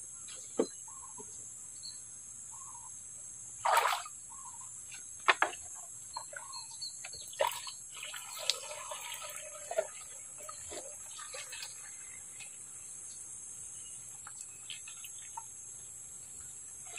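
Water being scooped from a ditch with a plastic jerrycan and poured into a plastic backpack sprayer tank: a splash about four seconds in, then water pouring into the tank for a couple of seconds around the middle, with scattered knocks of the plastic container. A steady high-pitched insect drone runs underneath.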